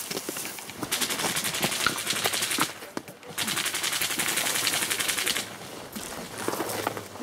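Airsoft gun firing on full auto: two long bursts of rapid, evenly spaced shots, each lasting about two seconds, with a short pause between.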